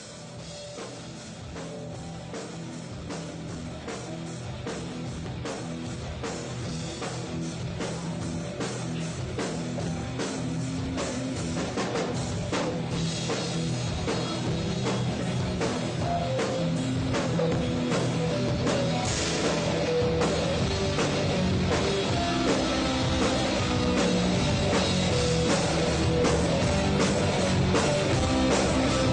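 Rock band playing live, with a drum kit and guitar, growing steadily louder as it fades in.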